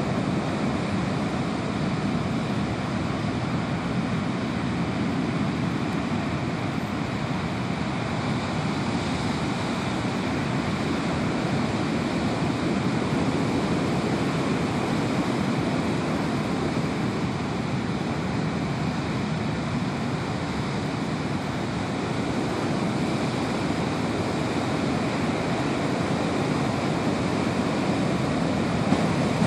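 Heavy ocean surf: large white-capped waves breaking offshore and foam washing up over the sand, heard as a steady, even rush of noise with no separate crashes standing out.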